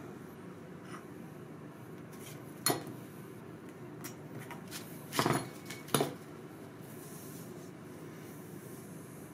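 Steel ruler and hobby knife handled on a cutting mat while trimming suede: a few sharp knocks and short scrapes, the loudest a little under 3 seconds in and again around 5 to 6 seconds in, over a steady low hum.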